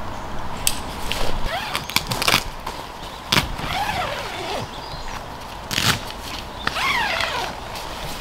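Nylon rainfly of a Kelty Rumpus 4 tent rustling as it is pulled over the tent, with footsteps on gravel and several sharp clicks and knocks.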